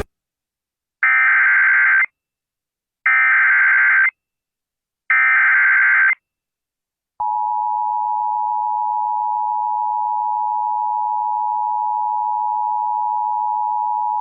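Emergency Alert System SAME header: three one-second bursts of data tones a second apart. After about a second of silence, the two-tone EAS attention signal starts about seven seconds in and holds steady.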